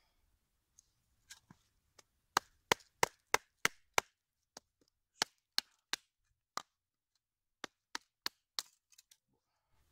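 Sharp wooden knocks as a short knife is hammered down through an upright section of branch to split it (batoning). There are about twenty strikes, loudest in a quick run of about three a second a couple of seconds in, then more spaced.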